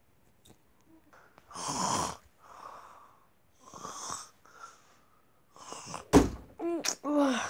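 A person breathing loudly in and out close to the microphone, about five drawn-out breaths like a mock snore. About six seconds in comes a sharp knock, followed by two short high-pitched vocal sounds that rise and fall.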